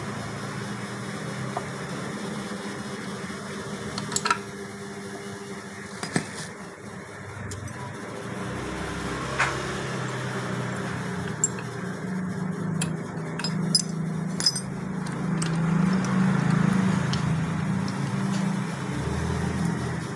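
Steel transmission gears, shafts and tools clinking against the aluminium crankcase of a dismantled Honda Supra X 125 FI engine as the parts are lifted out: a handful of sharp separate clinks. Under them runs a steady low hum that grows louder in the second half.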